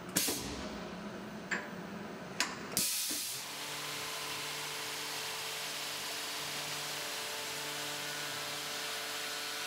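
A few sharp clicks in the first three seconds, then a Tormach CNC mill's spindle runs steadily under a continuous hiss of mist-coolant spray.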